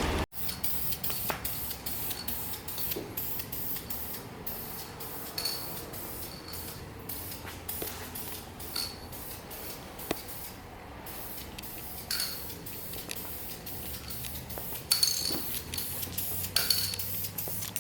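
Aerosol spray paint hissing onto an engine block in many short bursts, as primer or paint is laid on in light passes.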